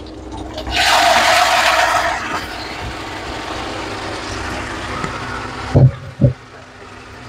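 Cooked beef pieces and their juices tipped into a hot pan of fried onions. A loud sizzling rush starts about a second in and lasts a second and a half, then settles to a steady quieter sizzle. Two short thuds come near the end.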